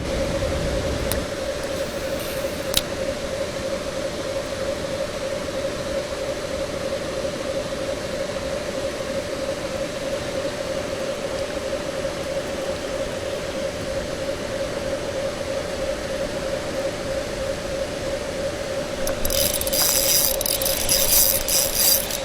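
Spinning fishing reel being wound steadily, with a constant mid-pitched whirr over a noisy hiss, and a fast clicking rattle near the end.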